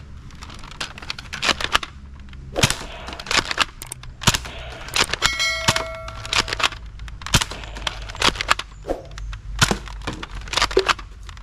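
Plastic toy blaster being handled and worked: a string of sharp clicks and snaps at irregular intervals, with a short electronic-sounding tone about halfway through.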